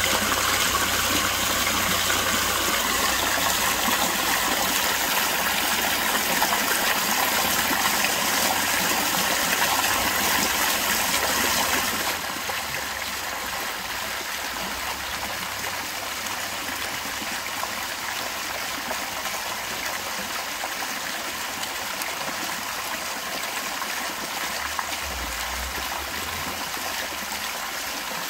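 Ornamental fountain: water from the jets splashing into the basin and spilling over a stone weir, a steady rushing splash. It steps down in loudness about twelve seconds in.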